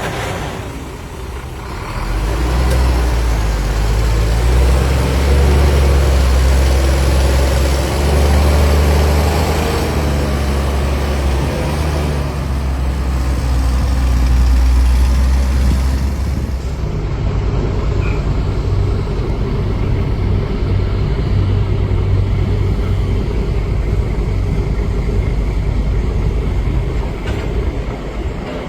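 Heavy diesel earthmoving machinery running hard under load. About two seconds in the engine rises to a loud, deep running, then about 17 seconds in it eases to a steadier, lighter running.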